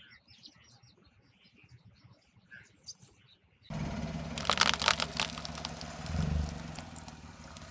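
A car tyre rolling over a woven straw ball, crushing it with a dense burst of crackling and crunching of the dry woven fibres that lasts about a second, over the low hum of the car's engine. Before that, faint chirps of birds in near quiet.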